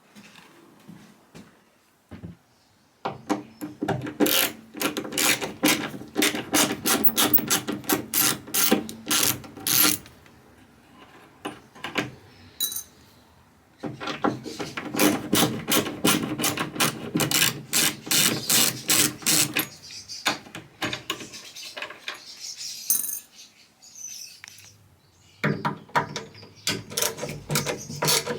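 Rapid mechanical clicking from a hand tool at work, coming in three long spells with pauses between.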